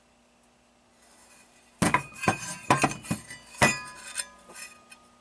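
Metal parts clanking and ringing as they are handled: a burst of about six sharp knocks, each leaving a ringing tone, starting about two seconds in and dying away over the next two and a half seconds.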